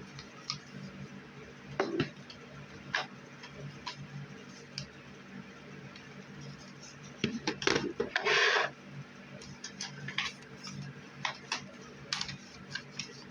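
Handling of plastic disposable cameras: scattered clicks and knocks, with a short louder rustle about eight seconds in, over a low steady hum.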